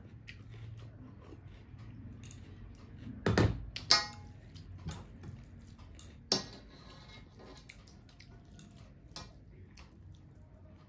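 Metal dishes knocking together: two clanks with a short metallic ring about three and a half to four seconds in, and a sharp clink about six seconds in, with light clicks from rice and dal being mixed by hand on a metal plate.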